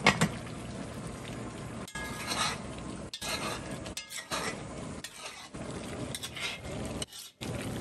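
Long-handled metal spoon stirring and scraping through cabbage, onions, smoked sausage and pork in a large black pot, with the pot sizzling on the burner underneath. The sound breaks off briefly a few times.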